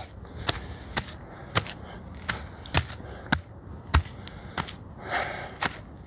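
Footsteps of a hiker walking on a sandy, rocky dirt trail, a sharp scuff with each step at about two steps a second.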